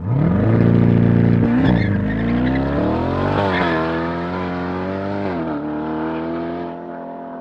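C8 Corvette Stingray's 6.2-litre V8 through a stainless-steel center-exit exhaust, launching hard from a standstill. The exhaust note climbs steeply and drops at quick upshifts about two, three and a half and five and a half seconds in, then grows fainter as the car pulls away.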